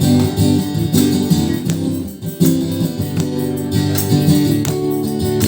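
Acoustic guitar strumming chords in an instrumental break between sung lines, with a brief pause in the strumming about two seconds in.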